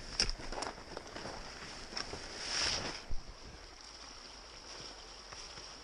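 Ski gear knocking and scraping as a skier pushes through snowy branches, with a short rushing swell about two and a half seconds in. After that, the steady rush of an open creek running under the snow.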